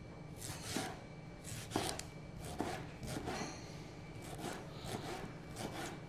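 Knife dicing ripe tomatoes on a plastic cutting board: about ten irregularly spaced cuts, each ending in a light tap of the blade on the board.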